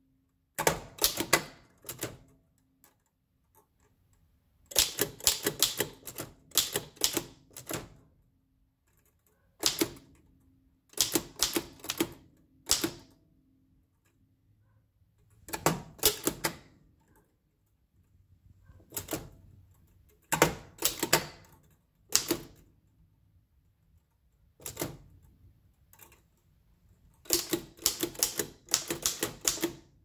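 Oliver No. 5 typewriter being typed on, fitted with a No. 9 carriage: quick runs of sharp keystroke clacks from its down-striking typebars, in bursts of several strokes broken by short pauses.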